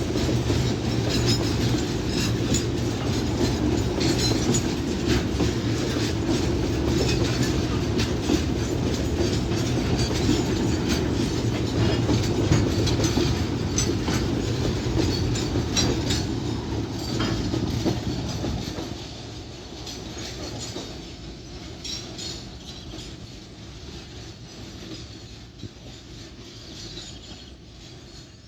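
Freight train wagons rolling past, with a steady rumble and repeated clicks of wheels over the rail joints. About two thirds of the way through the sound drops suddenly and fades away as the end of the train passes.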